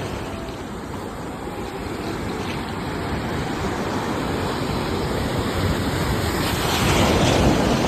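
Sea waves washing onto a shore, a steady rush that eases after the start and swells up again with a breaking wave about seven seconds in.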